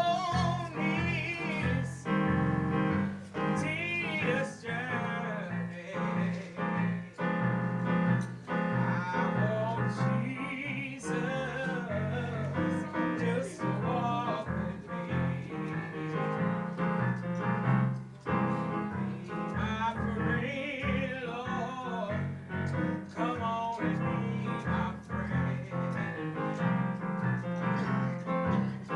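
A solo singer with piano accompaniment, the voice holding long, wavering notes over steady piano chords.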